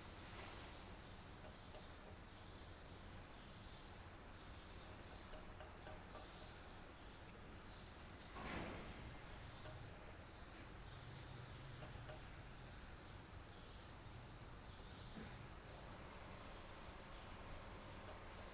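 Electric fan running with a steady, even whir and a constant high-pitched tone over it. About eight and a half seconds in there is a brief louder rush.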